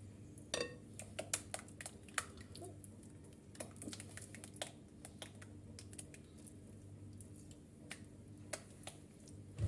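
Scattered light clicks and taps of utensils and dishes being handled, with one short ringing clink near the start, over a steady low hum.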